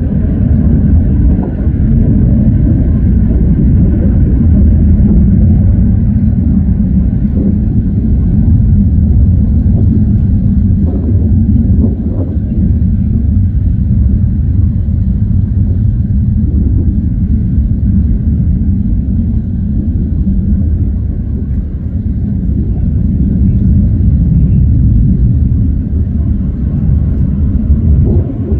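Fighter jet engines running, a loud, steady low rumble.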